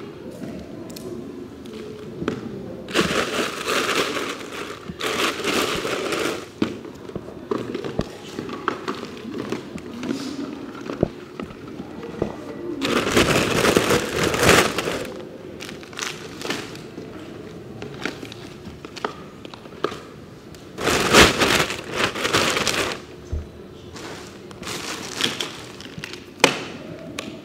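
Rustling and crinkling as things in a plastic basket are rummaged through and handled, in several bursts a second or two long.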